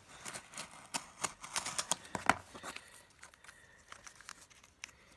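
Cellophane pack wrapper crinkling and tearing as it is pulled open by hand: a busy run of crackles in the first half that thins out toward the end.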